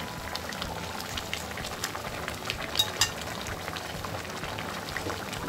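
Watery chili-spice sauce boiling in a pan around pieces of fried tilapia, bubbling steadily with small pops, as it cooks down to reduce. A few sharp clicks come about two and three seconds in.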